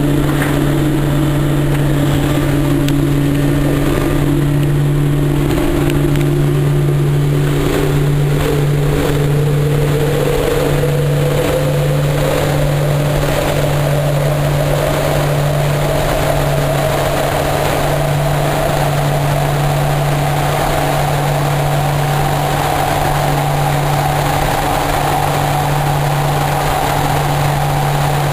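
Twin turboprop engines and propellers of a Short Skyvan droning steadily, heard from inside the aircraft. Over it a higher tone climbs smoothly in pitch through the first two-thirds and then levels off as the plane goes into its dive.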